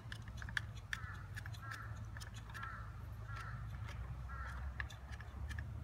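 A bird giving a run of short, harsh calls, about one a second, over light clicks from hands fitting a coax F connector into a masthead amplifier.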